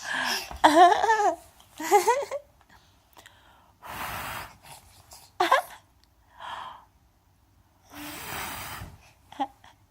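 A baby vocalising: two short, high, wavering squeals in the first couple of seconds, then a few loud, breathy huffs, with a brief squeak about halfway.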